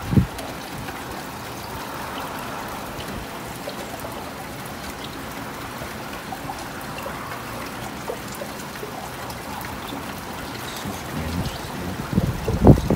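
Water trickling steadily, with scattered drips. There is a short low thump at the start and a cluster of louder low thumps near the end.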